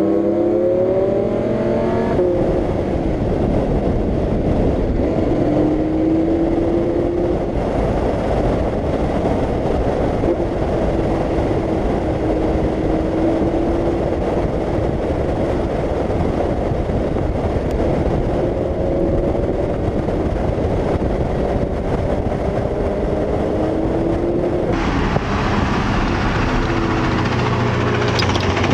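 Lamborghini Huracán's V10 engine pulling hard at speed on a racetrack, its pitch climbing through the revs several times over a heavy rush of wind on an outside-mounted microphone. Near the end the sound changes abruptly to the car heard from inside the cabin.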